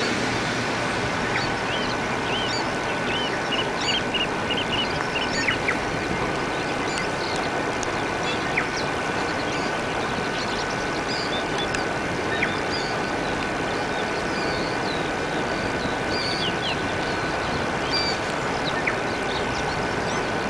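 Many short bird chirps and calls scattered over a steady background hiss, with a thin steady tone running underneath.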